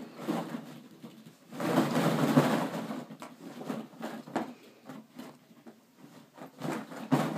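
Plastic ball-pit balls rustling and clacking against each other and the plastic kiddie-pool wall as a baby crawls through them. A longer burst of clattering comes about two seconds in, then scattered light clicks, with one sharper tap near the end.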